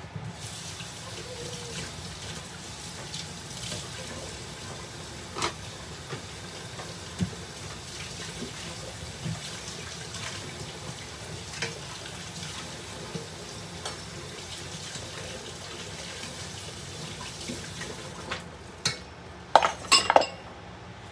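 Kitchen cookware sounds: a steady hiss with scattered light ticks, then a quick run of loud clinks and clatter from a pot and utensils near the end.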